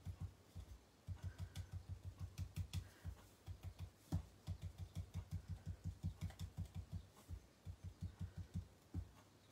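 Ink dauber being pounced rapidly onto paper on a tabletop, working pink ink through a doily die-cut: soft, faint dabbing taps, about seven a second, with a few brief pauses.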